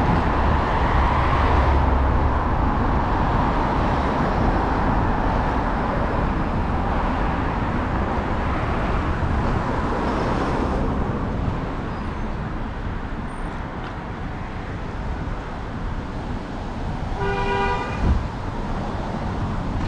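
Road traffic going by, a steady rush of cars that eases off after about the first half. Near the end a car horn sounds once, briefly, and a short thump follows just after it.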